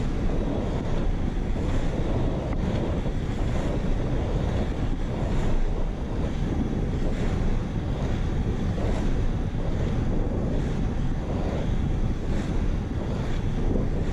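Wind rushing over an action camera's microphone at about 32 km/h, mixed with the rumble of inline skate wheels rolling on asphalt. A faint swish repeats about once a second with the skating strides.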